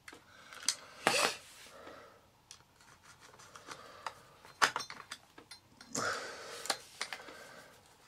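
Small metal parts being handled and fitted on a vacuum cleaner motor, as the front clamp and its screw go into place: sharp clicks every second or so among quieter scraping and rubbing.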